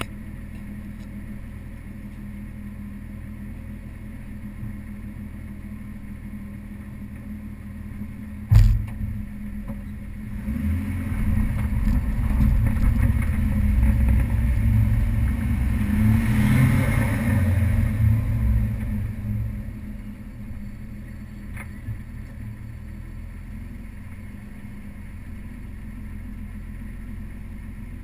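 Nissan Skyline R33 GTS-T's turbocharged RB25DET straight-six idling steadily, heard from a camera mounted on the car's side. A sharp thump about eight and a half seconds in. Then the engine gets louder for about ten seconds as the car drives slowly off, and it settles back to idle.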